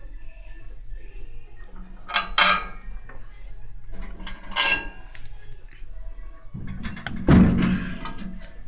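Steel parts of a homemade wood stove clanking and scraping as they are handled: two short bursts of metal on metal, then a longer, louder clatter near the end.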